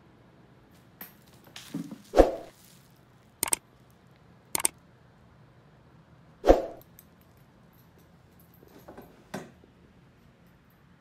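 Two cats scuffling and pouncing: two loud thumps with rustling around them, and a couple of short sharp clicks between them.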